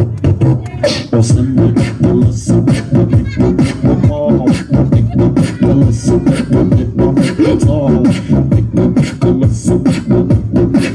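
Human beatboxing: a fast, steady rhythm of mouth-made drum sounds mixed with pitched vocal tones.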